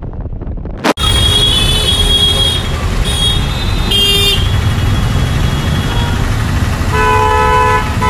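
Motor traffic in a jam: a steady engine rumble with vehicle horns honking over it, several short high toots in the first half, then a lower, fuller horn held for about a second near the end. It starts with a sudden jump from softer wind and riding noise about a second in.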